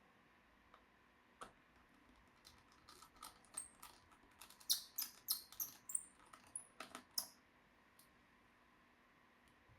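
Irregular small clicks and taps of laptop parts and tools being handled during disassembly, bunched together for a few seconds. A few of them carry a short high ring.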